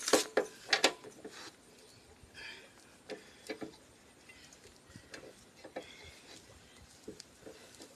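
Car jack being cranked to raise the car: a few sharp clicks in the first second, then faint, irregular ticks and brief squeaks from the jack.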